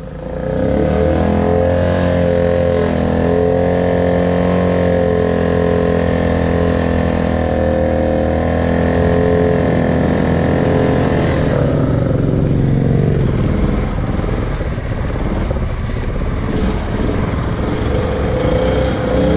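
Honda Foreman Rubicon 500 ATV engine running at a steady pitch while riding. About twelve seconds in its pitch falls away and the sound turns rougher and noisier.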